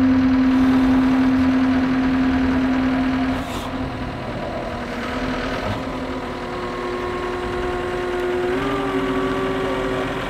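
John Deere 330G skid steer's diesel engine running while its loader arms lift and carry a pair of large dual tyres. A steady hum stops about three and a half seconds in, and the engine pitch then shifts and steps up near the end as the load is moved.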